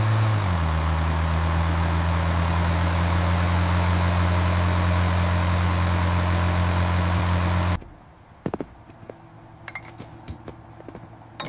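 A machine's motor running with a steady low hum and hiss. Its pitch settles a little lower just after it starts, and it cuts off abruptly about eight seconds in, leaving a few faint clicks.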